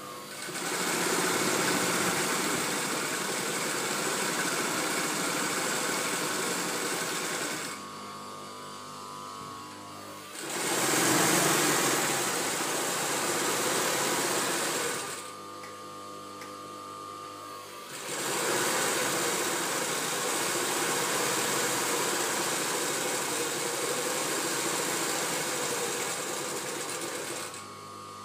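Three-head industrial hair weft sewing machine running at speed in three spells of several seconds each, stitching and folding the top of a hair weft. Between spells it stops and a quieter steady hum is left.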